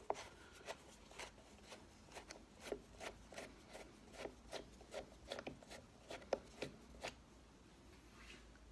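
Screwdriver turning out an old slotted hinge screw: a string of faint, irregular clicks and scrapes that stops about seven seconds in.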